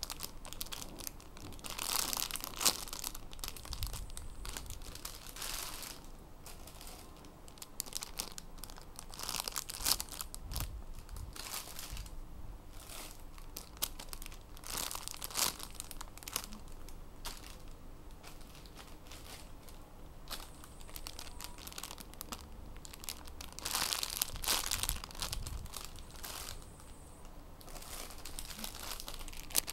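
Clear plastic bags crinkling in irregular bursts as hands pick up, squeeze and turn over the bagged squishy toys.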